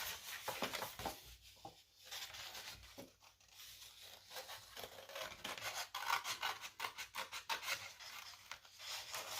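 Scissors cutting paper in a run of short snips and rustles, the paper rubbing as it is turned around the curves of a cut-out handprint.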